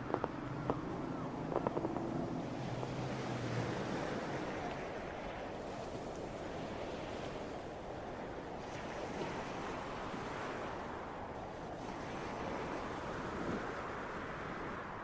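A steady rushing noise, like wind or surf, swelling and easing every few seconds, with a few faint clicks and a low hum in the first couple of seconds.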